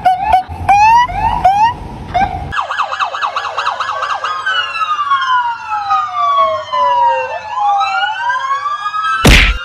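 Police-style electronic sirens: short rising chirps about three a second, then after a sudden change a fast warbling yelp, then several wails overlapping, each slowly falling and rising. A single sharp bang near the end.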